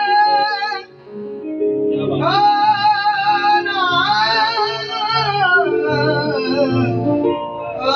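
A man singing long, wavering held notes in Punjabi, with a keyboard playing chords beneath. The voice breaks off just under a second in and comes back about two seconds in.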